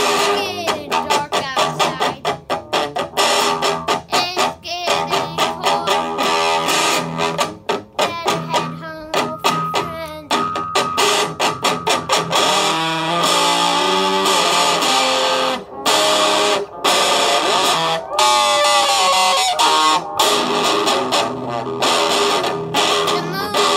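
Squier Stratocaster electric guitar playing a fast picked riff, broken by many short, abrupt stops.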